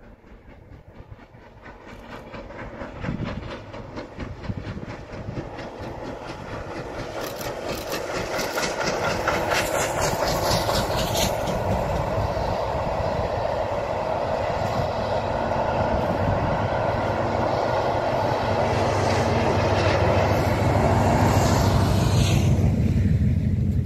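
Steam locomotive approaching and passing at speed with a fast, even exhaust beat, followed by its train of carriages rumbling and clattering by on the rails. The sound builds steadily from faint to loud, and a deeper steady drone comes in near the end as the diesel locomotive at the rear passes.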